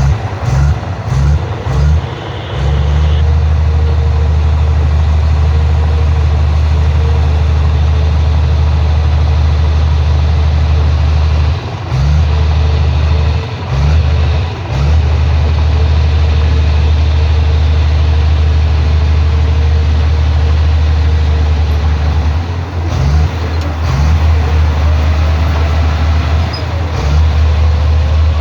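Heavy construction machine's diesel engine running steadily with a deep rumble, dipping briefly a few times.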